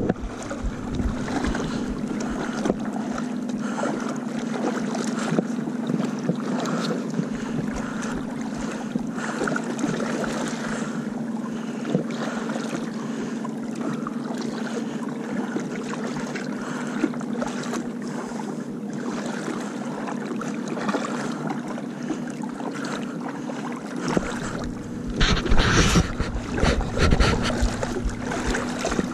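Boat engine running at a steady speed, a constant hum under a wash of wind and water noise. The noise swells louder for a few seconds near the end.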